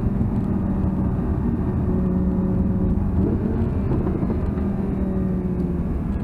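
Audi R8's V10 engine and tyre and road noise heard from inside the cabin as the car slows hard, the speed falling from about 130 to about 80 km/h. The engine note holds fairly steady, with brief changes around three and four seconds in.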